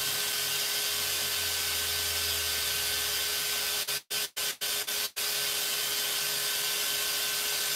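Steady hiss with a low hum underneath, broken a little after halfway by four or five brief dropouts to silence.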